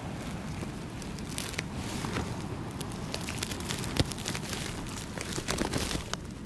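Ice and crusted snow crunching and crackling as a hand breaks the ice frozen along the bottom edge of the tent fabric. The sound comes as irregular small clicks, with one sharp crack about four seconds in and a run of louder crackles a little after.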